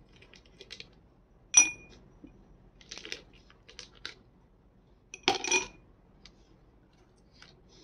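Ice cubes dropped by hand into ridged glass tumblers, each landing with a sharp clink that rings briefly. The loudest clinks come about a second and a half in and again near five seconds in, with lighter clatters between.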